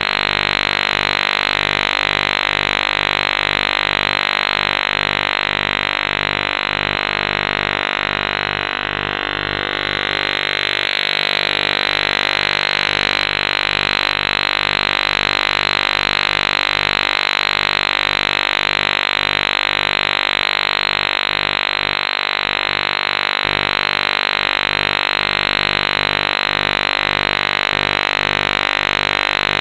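Harsh, steady electronic humming tone: many low pitches held together under a loud fuzzy buzz, with a slight dip about nine seconds in.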